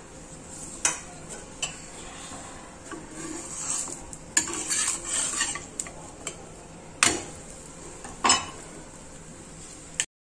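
A spatula knocks and scrapes against a hot tawa griddle, five or so sharp taps, over light sizzling as a jaggery flatbread roasts. The sound cuts off suddenly near the end.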